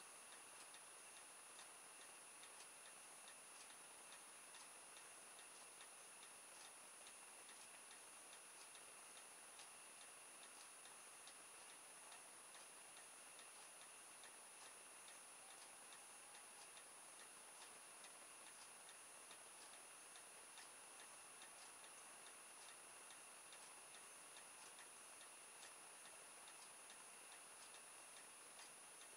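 Near silence: room tone with faint, regular ticking and a faint steady high-pitched whine.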